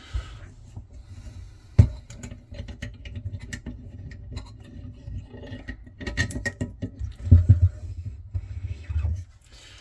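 Metal clicks, knocks and scrapes as a freshly picked Paclock 90A-Pro padlock and its pick and tension tools are handled, with one sharp knock about two seconds in and a cluster of knocks near the end.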